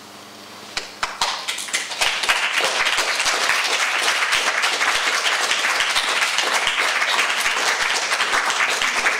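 Audience applauding: a few scattered claps about a second in, swelling into full, steady applause about two seconds in.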